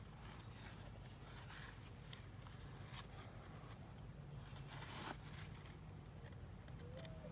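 Faint rustling and scraping of a paper towel and screwdriver tip wiping old silicone from around the screw holes on an outboard's lower-unit gearcase, a few brief scratchy rubs over a low steady hum.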